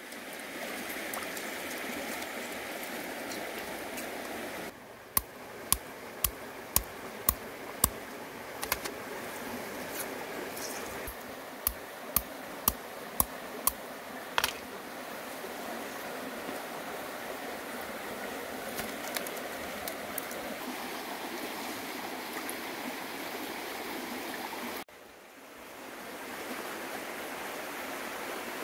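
Steady rush of flowing water, with two runs of sharp knocks, about two a second, five or six in each run, one a few seconds in and another near the middle.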